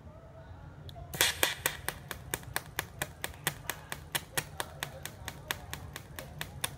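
TIG welding arc pulsed by an add-on automatic pulse board, giving a regular train of sharp snaps, about four a second, that starts about a second in. A steady low hum runs underneath.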